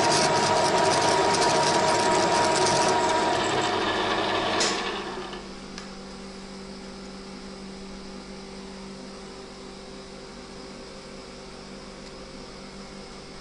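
A TV-4 benchtop lathe running through a thread-cutting pass, the cutter working the steel with a steady mechanical grind. About four and a half seconds in it stops with a click and dies away within a second, leaving a faint steady hum. The cut was apparently taken too deep and tore up the thread.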